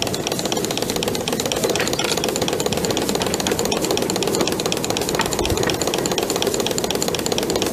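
A 2-inch-scale live-steam Shay locomotive running under steam: its geared engine chuffs and clatters in a rapid, steady beat.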